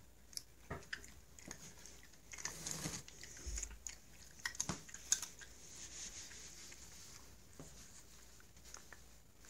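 A domestic cat chewing a Greenies cat treat: a run of short, crisp crunches over the first five seconds or so, then it goes quieter.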